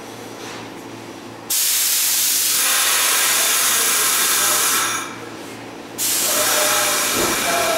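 Two loud bursts of compressed air hissing from a Pullman-Standard R46 subway car standing at the platform. The first starts suddenly about a second and a half in and lasts about three seconds; the second starts about six seconds in. This is typical of the air brakes releasing just before the train departs. A short low rumble comes near the end.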